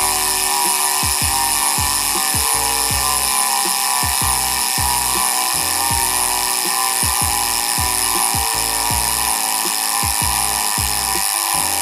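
Sagmit M120 rear hub's ratchet, six pawls with 120 points of engagement, freewheeling at medium speed: the pawl clicks run together into a steady, fine, high-pitched buzz.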